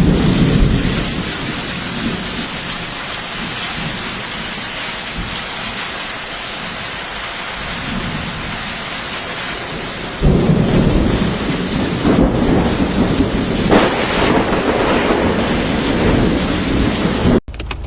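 Heavy tropical rainstorm pouring down: a dense, steady hiss of rain with a low rumble under it. It gets louder about ten seconds in and cuts off abruptly near the end.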